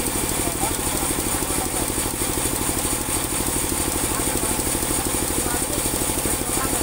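Engine of a portable band sawmill running steadily at idle with an even, rapid chugging pulse; the blade is not cutting.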